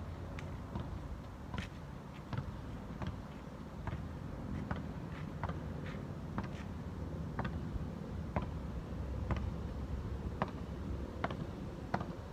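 Wind rumbling on the microphone, with scattered light, sharp ticks about two a second at irregular spacing.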